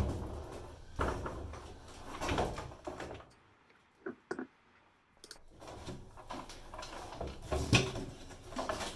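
Dull clunks and bumps of a front-loader washing machine's drum assembly being handled and fitted into its cabinet from the front. There is a pause of about two seconds in the middle.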